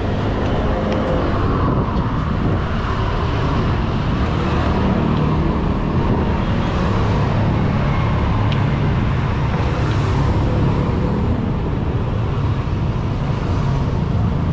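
Steady road traffic running past close by: a continuous engine and tyre noise from vehicles on the street.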